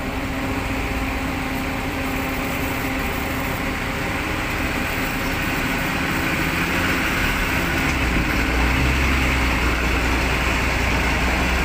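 A vehicle engine running steadily, with a low hum that grows stronger about two-thirds of the way through.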